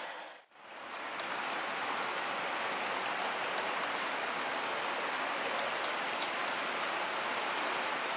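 Steady rushing rattle of HO scale model tank cars rolling along the track, after a sharp dip in the sound about half a second in.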